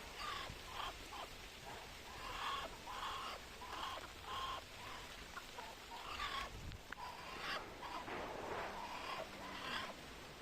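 Muscovy duck hissing in short, breathy calls, about two a second, with a longer hiss near the end.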